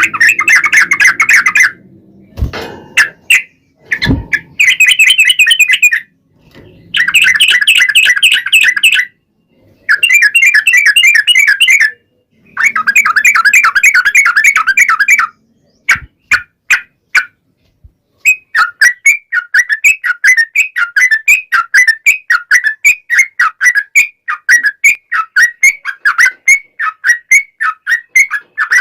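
Yellow-vented bulbul song: several long, rapid trilled phrases of two to three seconds each with short breaks between them. From about two-thirds of the way in they give way to a steady run of separate chirping notes, about two or three a second. Two brief low thumps come early on.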